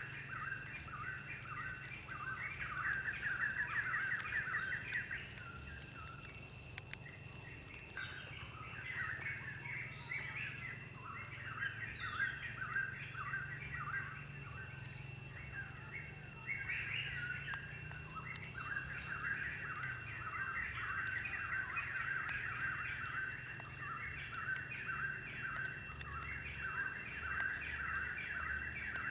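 Birds chirping in quick runs of short repeated calls, over a faint steady high-pitched whine.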